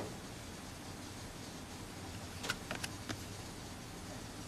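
Trading cards being handled: a few quick light clicks and taps about halfway through, over a steady background hiss and hum.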